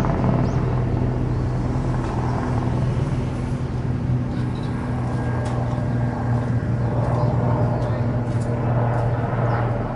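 A steady low engine hum under outdoor background noise.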